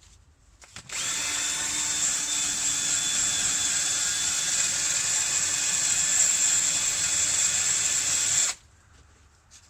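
Electric drill spinning a soft wire brush against a motorcycle's outer fork tube, scrubbing off grime and old paint. It starts about a second in, runs steadily, and stops suddenly near the end.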